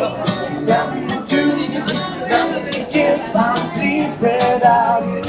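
Music: a singer with acoustic guitar, the voice rising and falling over plucked guitar notes.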